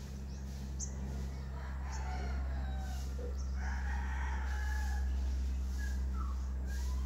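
A rooster crowing, with its longest crow about halfway through, over a steady low hum.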